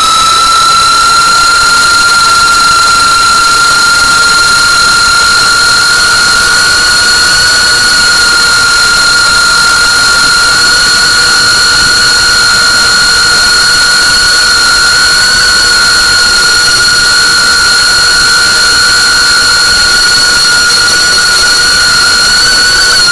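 FPV quadcopter's brushless motors and propellers giving a steady high-pitched whine at a near-constant throttle.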